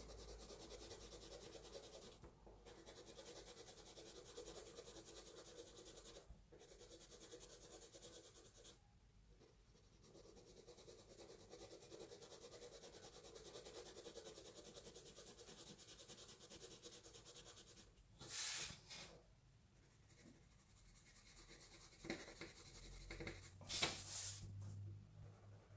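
Graphite pencil scratching faintly across paper in quick, controlled shading strokes, darkening a tone swatch, with a few brief pauses. Two louder, brief scrapes come about two-thirds of the way in and near the end.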